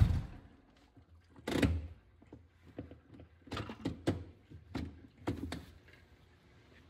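A running engine cuts off at the very start, followed by a few seconds of scattered light knocks and clunks from handling under the vehicle.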